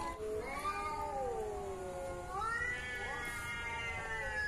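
Recorded cat-fight yowls played from a smartphone speaker: cats yowling at each other in a standoff, long drawn-out wavering calls that glide slowly down and up, one running into the next.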